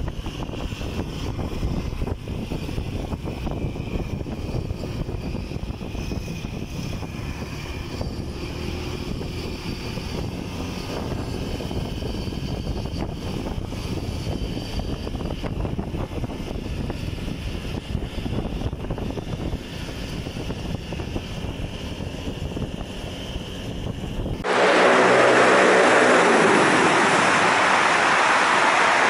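Wind buffeting the microphone over the engine and road noise of a moving motorcycle, with traffic around it. About 24 seconds in, the sound cuts abruptly to a louder, steady rushing noise.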